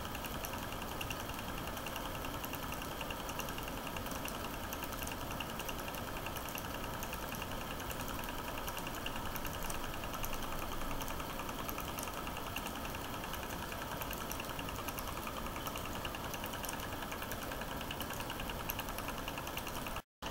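9.5mm cine projector running, a steady mechanical clatter with a fast even ticking from the film mechanism. It cuts out briefly near the end.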